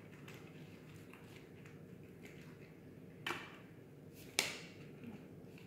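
Two brief sharp handling noises about a second apart, from gloved hands working on fish in a baking tray, over a low steady hum.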